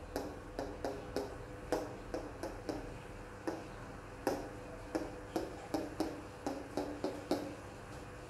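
Capped marker tapping against a whiteboard, a run of short taps about two to three a second, unevenly spaced.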